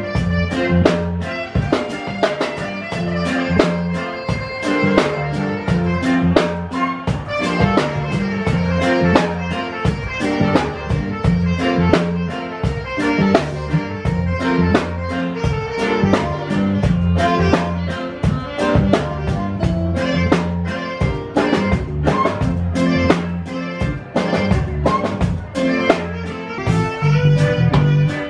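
Live band playing: a saxophone leads over electric guitar and a drum kit keeping a steady beat.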